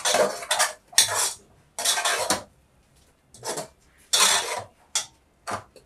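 Metal ladle stirring thick okra soup in a metal cooking pot, scraping against the pot's sides and bottom in about eight separate strokes.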